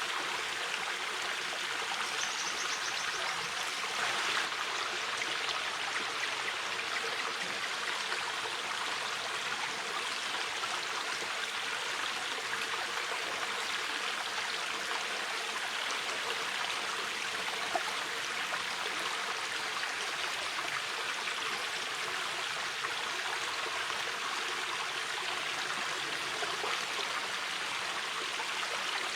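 Shallow mountain river flowing steadily over stones, an even rush and babble of water.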